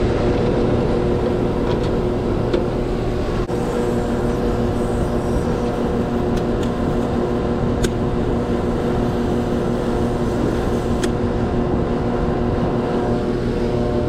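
Outdoor air-conditioning condenser running steadily, its compressor and condenser fan giving a constant hum with a few steady tones, together with a fan blowing on the microphone. It is kind of loud. A few light clicks come from brass fittings being handled.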